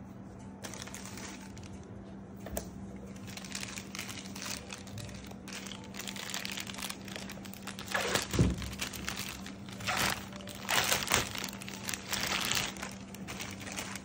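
Plastic packaging wrap crinkling and rustling as it is handled and pulled off a robot vacuum's mop plate, in irregular bursts that grow loudest from about eight seconds in.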